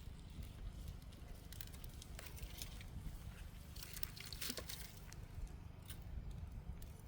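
Small kindling fire crackling faintly, with scattered light snaps and rustles and a quick cluster of sharper snaps about four seconds in.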